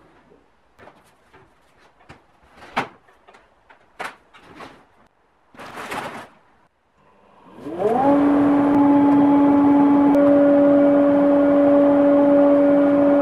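A few knocks and a rustle of handling, then about seven and a half seconds in the Metabo SPA 1200 chip and dust extractor switches on. Its motor and fan spin up with a rising whine, then run loud and steady with a hum, a whine and a rush of air.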